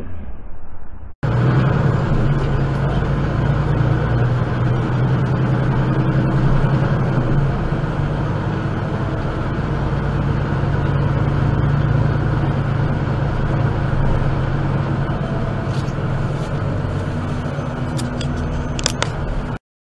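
Steady low engine hum and road noise inside the cab of a large vehicle driving slowly, with a few sharp clicks near the end. It starts abruptly about a second in and cuts off just before the end.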